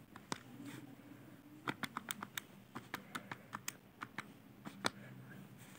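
Keys of a MAAZ MA-991ES PLUS scientific calculator being pressed: a quick run of about a dozen light clicks as 148 + 273 is keyed in.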